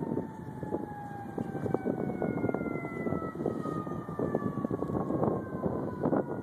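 Distant emergency-vehicle siren with its pitch sliding slowly downward as it winds down, over wind buffeting the microphone.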